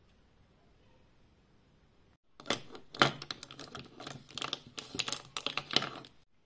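Small glass perfume sample vials clinking and rattling against each other in a wooden bowl as a hand rummages through them: a rapid, irregular run of light clicks starting about two seconds in and lasting about four seconds.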